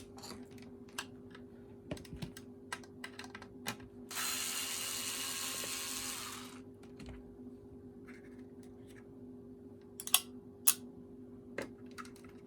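Small clicks and knocks of hard plastic parts and a hand tool being worked as the cord grip and wire connector are taken out of an Electrolux vacuum cleaner handle. A steady hiss lasts about two seconds from about four seconds in, and two sharp clicks come near the end. A faint steady low hum runs underneath.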